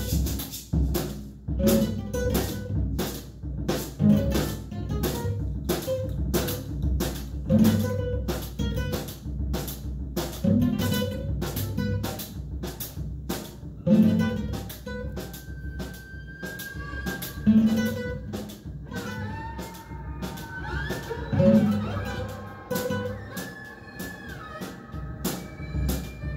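Small live band playing: a drum kit keeps a steady beat of cymbal and drum strikes with heavier low hits every couple of seconds, under an acoustic guitar. A bowed violin comes in with long held notes about halfway through.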